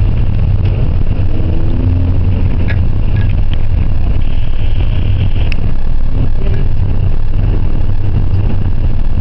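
Car driving at speed with a window open: a steady, loud low rumble of wind rushing past the open window, mixed with road noise.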